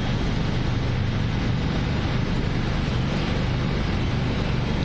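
Steady outdoor rumble and hiss with no separate events, heaviest in the low end.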